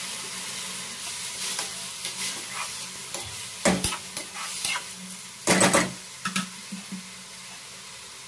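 Bahal flower buds frying in a metal kadai: a steady sizzle, with the metal spatula scraping and clattering against the pan as they are stirred, louder strokes about three and a half and five and a half seconds in.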